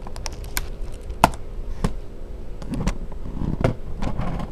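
Small flathead screwdriver tip clicking and tapping against the plastic retaining tabs above an Acer Aspire laptop keyboard as the tabs are pushed in to release it. There are several separate clicks, the loudest a little over a second in, with softer rustling from hands on the laptop in the second half.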